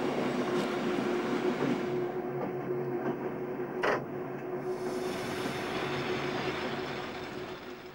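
Train running along the track: steady rolling noise with a constant hum underneath and a single sharp click about four seconds in, easing off slightly at the end.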